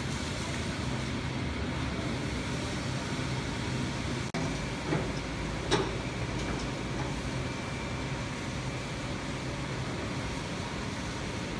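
Steady machinery noise of a large fabrication workshop with a low hum under it. Two short knocks come a little past the middle.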